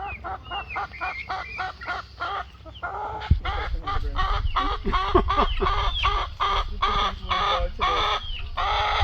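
A flock of chickens clucking and squawking rapidly, several at once, as they compete for scraps of coconut. A thump about three seconds in is followed by a low rumble.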